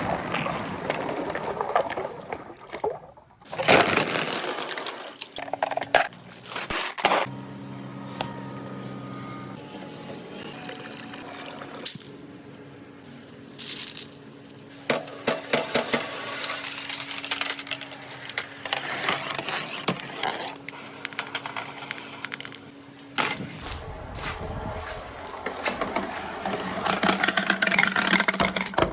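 Many glass marbles rolling and clattering along a marble run's tracks, with dense rattling ticks and a loud rush of marbles at about four seconds in. A steady low hum runs under the clatter through most of the middle and stops about two-thirds of the way through.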